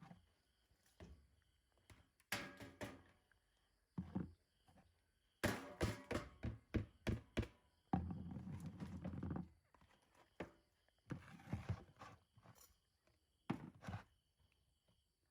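Irregular knocks and thuds, several in quick succession about five and a half seconds in, followed by a rough scraping noise lasting about a second and a half.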